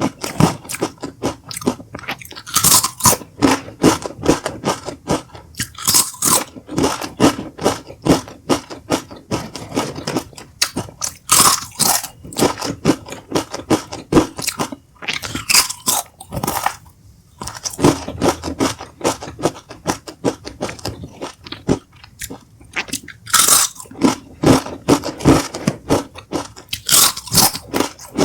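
Doritos tortilla chips being bitten and chewed close to the microphone: a loud crunch at each bite every few seconds, with a quick run of smaller crackling crunches between as the chips are chewed.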